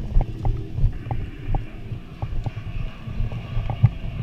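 Irregular low thumps and rumble with scattered short clicks, several a second: movement and handling noise picked up by a body-worn camera microphone.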